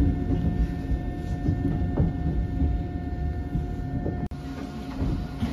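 Eizan Electric Railway train running, heard from inside the front of the car: a steady low rumble with a faint steady whine and a few sharp clicks. The sound breaks off abruptly about four seconds in and carries on a little quieter.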